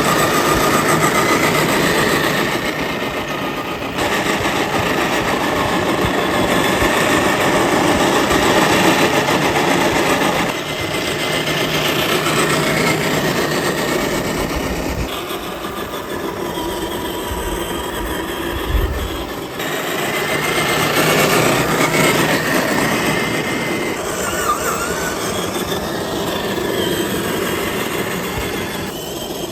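Electric motor and gearbox of an FMS Toyota Land Cruiser FJ40 RC scale crawler whining as it drives over rough, muddy ground, the pitch shifting with the throttle. The sound changes abruptly several times, at cuts between driving shots.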